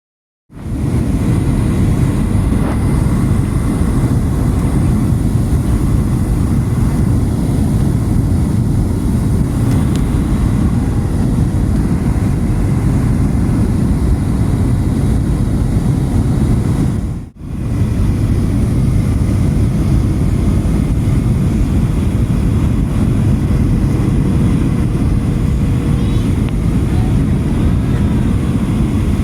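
Steady low cabin noise of a Southwest Boeing 737 airliner in flight, with engines and airflow, and a faint steady hum above it. It drops out briefly about 17 seconds in.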